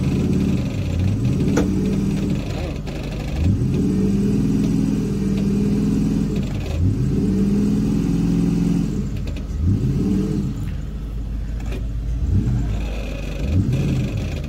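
A vehicle engine revved up and down over and over, its pitch climbing and dropping back about every couple of seconds, while a stuck truck is being winched out of a muddy field.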